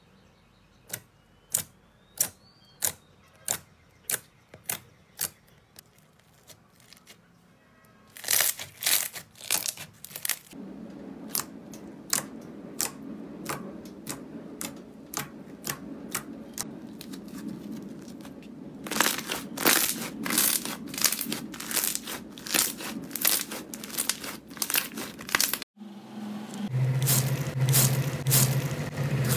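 Fingers poking and pressing glossy slime, giving sticky pops and crackles: single pops spaced about half a second apart at first, then denser crackling. Near the end, a hand squishing through a tub of wet water beads.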